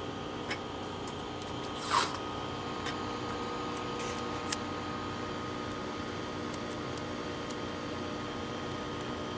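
Steady hum of running lab equipment (gas chromatograph fans), with a few steady tones in it. A brief rustle about two seconds in and a few light clicks come from small items being handled on the bench.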